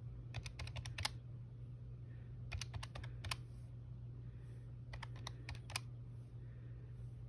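Calculator keys being pressed: three quick runs of several plastic clicks each, with pauses between, as figures are keyed in to add up a total.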